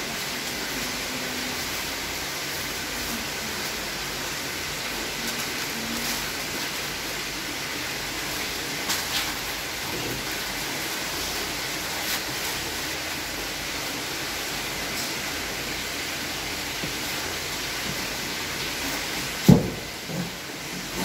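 A steady rushing noise, with faint handling and newspaper rustling over it and one sharp thump near the end.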